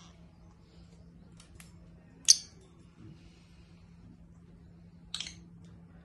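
A few short, shrill chirps from caged parrots: a loud single chirp a little over two seconds in and a quick couple near the end, over a steady low hum.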